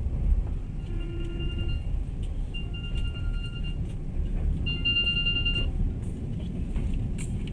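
Passenger train running: a steady low rumble from the wheels on the rails, with a thin high squeal that comes and goes three times, each about a second long, and a few faint clicks.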